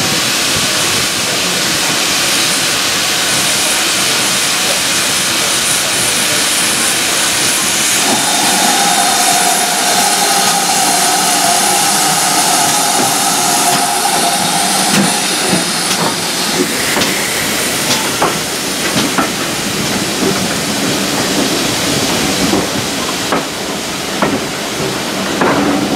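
GWR 5101 class 2-6-2T tank locomotive 4110 hissing steam as it draws slowly past with its coaches, a steady tone held for about six seconds midway. In the second half the coach wheels click and knock over the rail joints.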